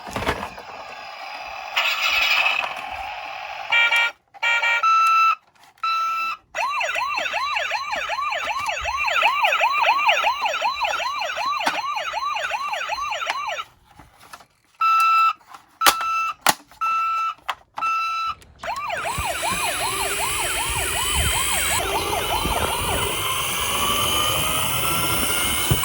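Toy police car's electronic siren: a few short beeps, then a fast rising-and-falling yelp repeating for several seconds, more short beeps, and near the end the yelp again over a rising rushing noise.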